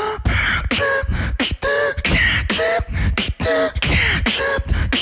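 Beatboxing: rhythmic bass kicks and sharp clicks alternating with short pitched notes made on the inhale, stepping through a tuned progression of different notes.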